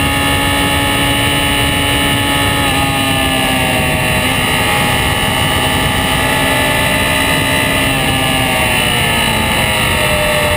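Honda CB600F Hornet's inline-four engine running at steady road speed, over heavy wind rush on a camera mounted low by the front fork. Near the end the engine's pitch falls gradually as the revs drop.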